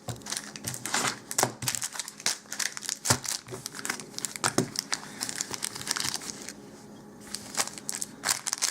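Sealed Dark Ascension Magic: The Gathering booster packs in their crinkly wrappers rustling and crackling as they are handled and dealt into piles, with many irregular crackles and a short lull about seven seconds in.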